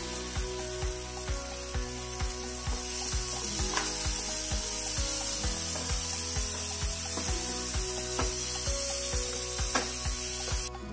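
Onion and tomato masala sizzling as it fries in oil in a pan, under background music with a steady clicking beat. The sizzle cuts off suddenly near the end, leaving the music.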